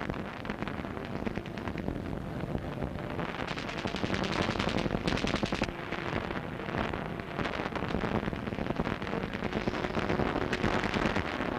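Battle sound of rapid machine-gun fire in bursts mixed with scattered shots, growing heavier about three seconds in, with brief lulls.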